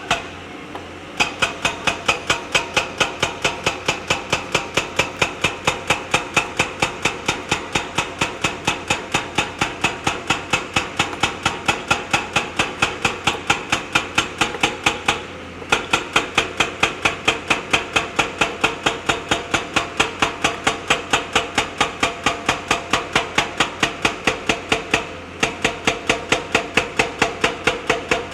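Rapid, evenly spaced hammering blows, about four a second, with two brief pauses, over a steady engine tone, from a JCB backhoe loader at work on river stones.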